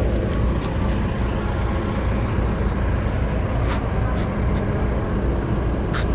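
Bus engine running with a steady low rumble, with a couple of short clicks about halfway through and near the end.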